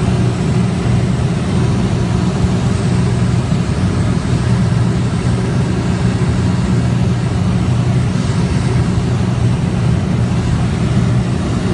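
Small high-wing airplane's engine and propeller drone heard from inside the cabin, loud and steady.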